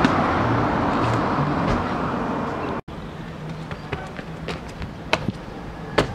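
Steady street noise with passing traffic for about the first three seconds. After a sudden cut, a quieter street background carries a run of sharp footsteps and landings of a runner's shoes on concrete ledges, the loudest about five and six seconds in.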